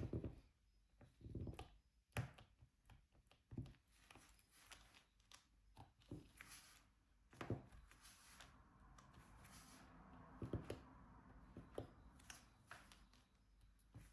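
Faint, irregular taps and clicks of diamond painting: the drill pen picking up resin drills and pressing them onto the sticky canvas, with a soft rustling stretch in the second half.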